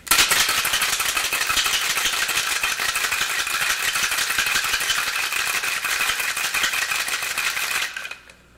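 Ice cubes rattling hard inside a stainless steel cocktail shaker, shaken vigorously in a fast, steady clatter. It stops abruptly near the end.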